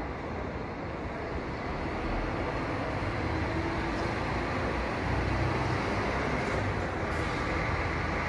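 Diesel engine of a double-decker intercity coach running as it pulls away from the platform, growing louder about two seconds in.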